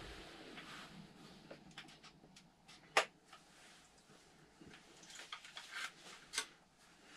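Quiet inside a small metal hunting blind, with a few small handling clicks and knocks. The sharpest comes about three seconds in and another a little after six seconds, around when the binoculars are lowered.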